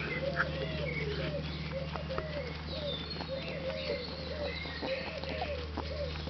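Rabbits chewing and tearing barley grass close to the microphone, heard as many short crunching clicks. Behind it runs a steady chain of low cooing bird calls, a few high bird chirps and a steady low hum.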